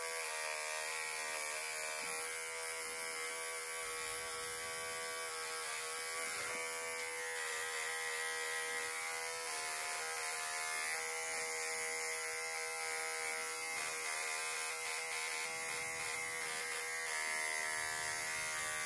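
Small cordless pet clipper buzzing steadily as it trims the hair between a dog's paw pads.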